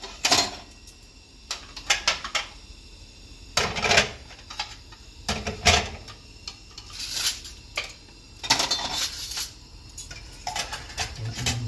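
Plates, bowls and cutlery clinking and clattering in irregular knocks as dishes are taken from a metal dish rack and handled on the counter.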